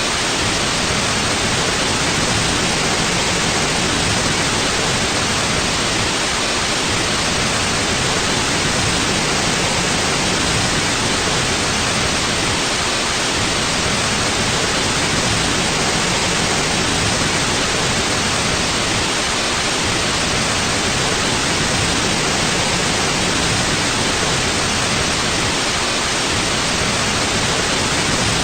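Steady white noise for sleep: an even, unchanging hiss with no events.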